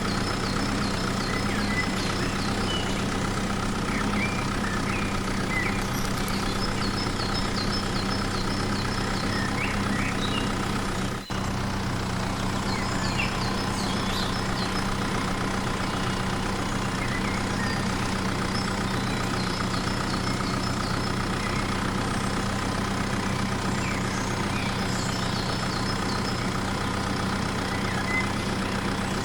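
Steady engine drone, like a heavy vehicle idling, with a brief dropout about eleven seconds in. Faint high chirps repeat over it in short runs every few seconds.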